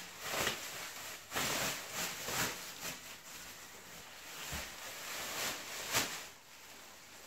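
Bubble wrap and plastic wrapping rustling and crinkling in uneven bursts as it is pulled off a metal exhaust muffler and pipe, with a couple of dull knocks.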